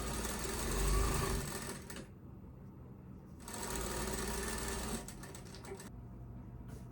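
JUKI DDL-900C industrial single-needle lockstitch sewing machine stitching in two short runs. It stops about two seconds in, starts again a second and a half later, and stops again about five seconds in.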